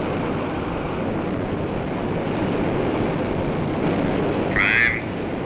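Steady rushing rumble of a jet aircraft in flight, heard aboard. Near the end a short burst of a voice over a radio link breaks in.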